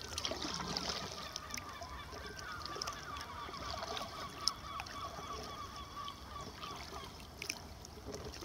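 Birds calling: a long, dense run of short, quick calls that overlap one another.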